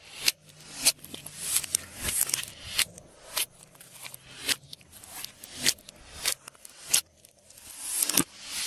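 Glossy slime being squished and stretched by hand, with wet clicks and pops about once or twice a second as it is folded and squeezed.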